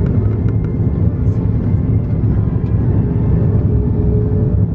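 Steady low cabin rumble of an Airbus A330-300 on final approach with flaps down: its GE CF6 turbofan engines and the rush of air, heard from a seat behind the wing. A few faint clicks sound over it.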